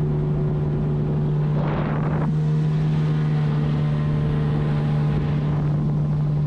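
Outboard motor of a small aluminium boat running steadily under way, a constant drone, with wind noise on the microphone. A short rush of noise about two seconds in.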